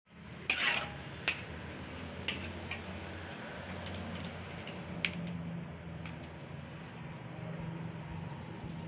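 Metal spatula scraping and clinking against a wok while a thick spice sauce is stirred, with sharp clinks about half a second, one, two and five seconds in. A low steady hum runs underneath.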